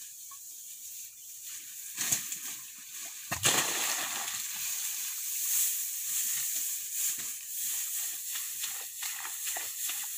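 Dry grass and brush rustling and crackling as it is handled and gathered by hand. Louder crunches come about two and three and a half seconds in, over a steady high hiss.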